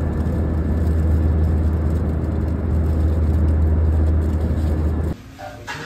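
Steady airliner cabin drone of engine and air noise, heard inside the cabin, with a strong low hum. It cuts off suddenly about five seconds in.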